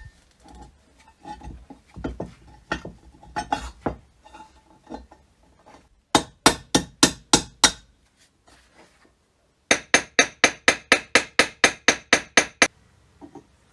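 Hammer striking metal: a few irregular knocks and clinks, then two quick runs of sharp, ringing blows, about four a second.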